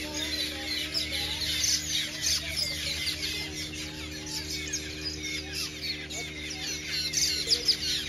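Many small birds chirping in a tree: a dense chorus of short, high, quick calls that never lets up, over a low steady hum.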